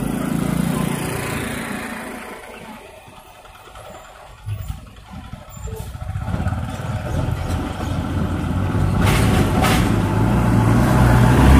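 Road traffic passing close by: a motorcycle and a car go by at the start and fade away. A state transport bus's diesel engine then approaches and grows steadily louder toward the end. Two short, sharp noises come about nine seconds in.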